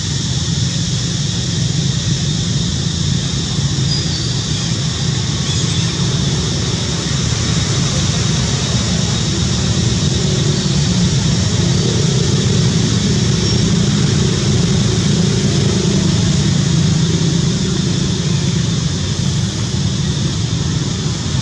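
Steady outdoor background noise: a constant low rumble under an even high hiss, with no distinct calls or impacts.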